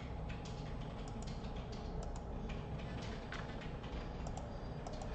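Scattered light clicks from a computer mouse as options are picked from drop-down menus, over a low steady hum.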